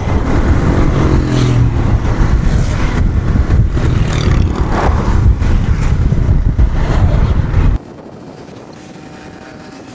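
Road noise of a vehicle on the move: a loud, dense rumble that cuts off suddenly about eight seconds in, leaving a much quieter steady background.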